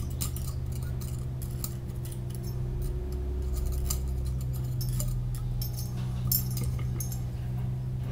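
Light, irregular metallic clicks and scrapes as a thin tool pokes a steel shim down inside an MGB front hub onto the end of the stub axle. A steady low hum runs underneath.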